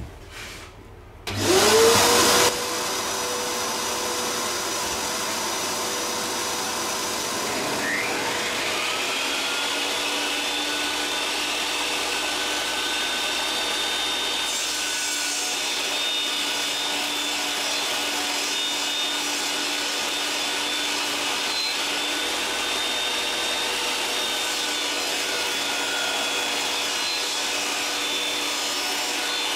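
Shop vacuum switched on, running with a steady drone; about eight seconds in a small electric router starts and spins up with a rising whine, and both machines then run steadily together.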